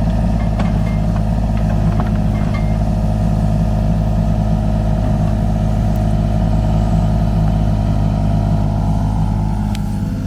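Kubota U35-4 mini excavator's diesel engine running steadily, with a few light knocks in the first few seconds.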